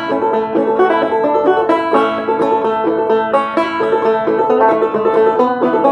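Open-back banjo played clawhammer style: an old-time tune picked unsyncopated in a steady, even stream of plucked notes over ringing strings.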